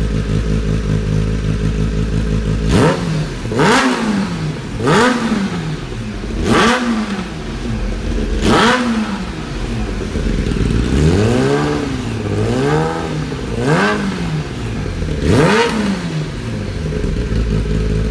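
2015 Kawasaki ZX-10R's inline-four engine running through an Akrapovic full exhaust system: it idles, then about three seconds in the throttle is blipped sharply about nine times, each rev shooting up and falling back, before it settles back to idle near the end.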